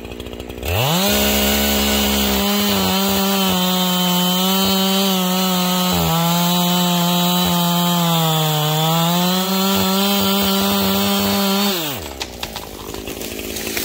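Two-stroke chainsaw revved from idle to full throttle under a second in and held there through a felling cut into a pine trunk. Its pitch sags briefly under load about two-thirds of the way through, then falls back to idle near the end.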